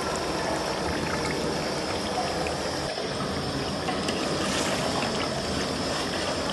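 Beef pieces sizzling and bubbling in hot oil in a large aluminium pot, a steady hiss: the meat is being fried (bhuna) after its cooking water has boiled off. A ladle stirs through it in the second half.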